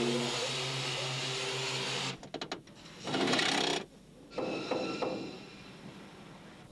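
Truck-factory machinery noise changing abruptly between shots. First a steady engine-like running sound with a wavering whine, then, about two seconds in, a quick series of clicks and a loud noisy burst of about a second. This is followed by mechanical clattering that fades away.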